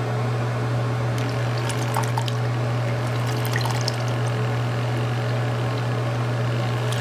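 Electric makeup brush cleaner spinning a brush in a bowl of water: a steady motor hum under constant swishing and splashing of the churned water.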